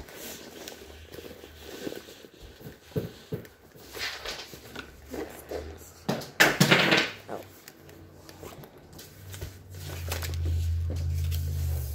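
Scattered rustling and light knocks of things being handled, with a louder rustle about six and a half seconds in and a low hum during the last two seconds.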